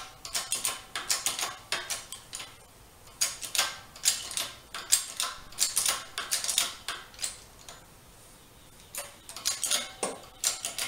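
Hand-pumped 20-ton hydraulic bottle jack on a shop press, its pump handle stroked up and down in quick metallic clicks, in runs with a couple of short pauses, while the press drives a front wheel bearing into the wheel hub.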